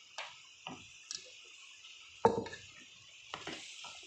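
A spoon knocking and scraping in a plastic mixing bowl as chopped tomato is added and stirred in, with a few sharp knocks, the loudest about two seconds in.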